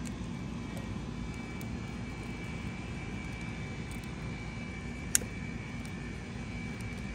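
Steady low rumble of outdoor background noise with a faint high whine running through it, and one sharp click about five seconds in.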